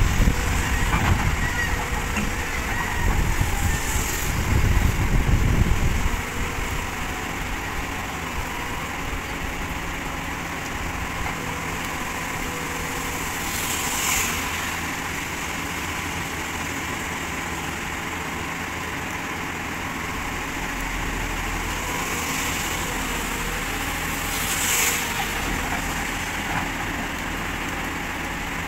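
Tata Hitachi 200 excavator's diesel engine running steadily as the machine levers itself onto a lowbed trailer. A heavy low rumble fills the first six seconds, and brief hissing swells come about fourteen and twenty-five seconds in.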